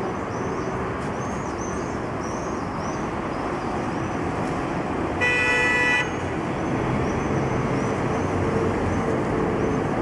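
Steady road traffic noise of cars and buses going round a traffic circle, with a vehicle horn sounding once for just under a second about five seconds in. Low engine hum of passing buses grows toward the end.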